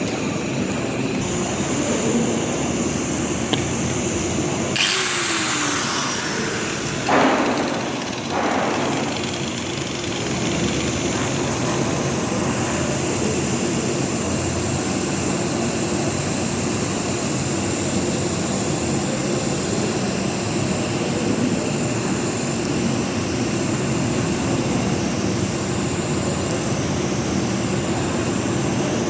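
An engine runs steadily throughout, with two brief loud hissing bursts about five and seven seconds in.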